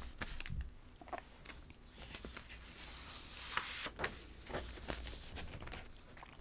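Close-miked handling sounds: soft rustling of a loose blouse sleeve as an arm reaches forward, strongest a little before the middle, with scattered small taps and clicks.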